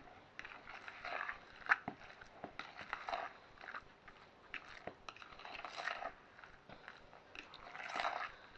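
A fork stirring a thick mash of cannellini beans, broccoli, egg and grated cheddar in a mixing bowl: faint, irregular clicks and scrapes of the fork with soft wet stirring, a little louder in a few short spells.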